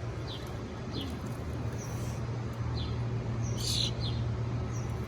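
Small bird giving short, high chirps about once a second, with one louder, harsher call about three and a half seconds in.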